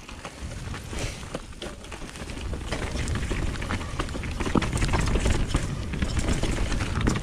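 Mountain bike riding down a dirt flow trail: wind rushing on the microphone grows louder as speed builds, with rapid clicks and rattles from the bike over bumps.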